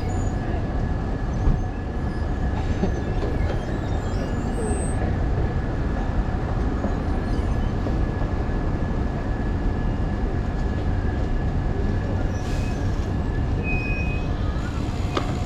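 Steady low rumble and rush of wind buffeting a chest-mounted camera's microphone on a moving bicycle, with a thin steady whine held underneath and a brief knock about a second and a half in.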